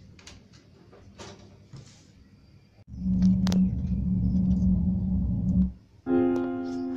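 Faint small clicks, then a loud, steady low hum that starts suddenly about three seconds in and cuts off abruptly about three seconds later. Piano music begins near the end.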